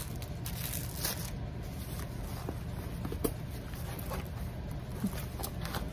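Plastic packaging and a rolled diamond-painting canvas being handled and unfolded: crinkling and rustling with a few light clicks.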